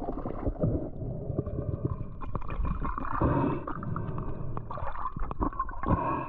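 Muffled underwater gurgling and bubbling picked up by an underwater camera, with many scattered clicks and knocks as a speared fish is handled on the spear line.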